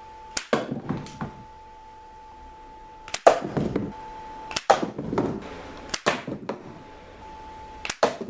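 A rubber-band-powered cardboard slingshot rifle shooting a nail-tipped wooden arrow into a cardboard box, five times. Each shot is a sharp snap and smack that trails off in a short rattle.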